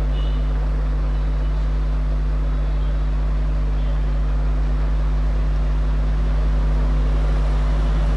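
A steady low hum that holds at the same level throughout.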